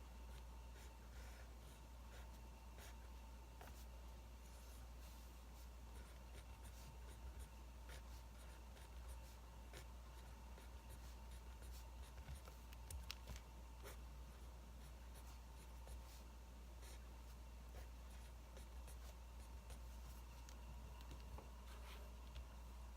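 Faint pen writing on paper, scratching with scattered small irregular ticks, over a steady low hum.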